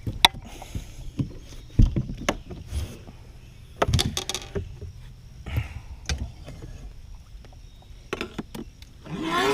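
Irregular knocks and thumps on a fishing boat, about a dozen scattered over several seconds, over a faint steady low hum.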